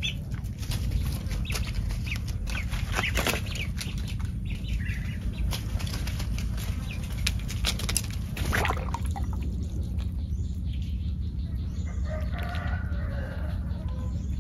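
Poultry calling, with short high calls near the start and a run of calls near the end, among frequent rustling and clicking noises over a steady low rumble.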